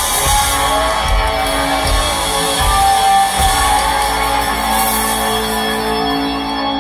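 A rock band playing live, with electric guitar, through the concert sound system.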